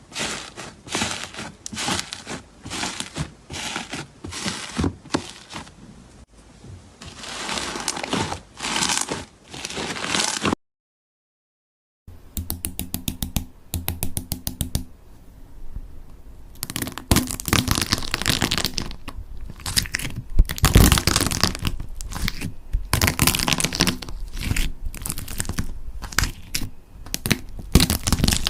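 Slime being squeezed, poked and stretched by hand, making rapid crackling clicks and crunches, with a brief silence about ten seconds in.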